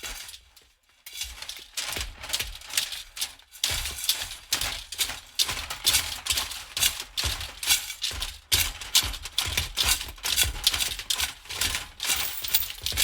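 Metal pieces rattling rhythmically, a clattering jingle repeated about twice a second. The rattling breaks off for a moment and starts again about a second in.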